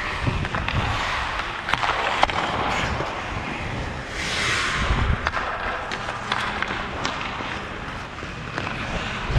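Ice skate blades scraping and carving on rink ice, with sharp clacks of hockey sticks and puck. About four seconds in comes a longer, louder hissing scrape, as of a hard skating stop that sprays ice.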